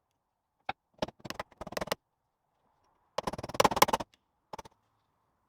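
Metal differential parts being handled: a few clicks and knocks, then a dense, loud clatter of metal on metal about three seconds in, and a last knock shortly after.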